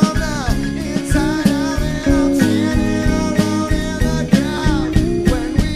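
Band music with a steady beat and lead guitar playing bent notes that slide downward in pitch, an instrumental stretch of the song.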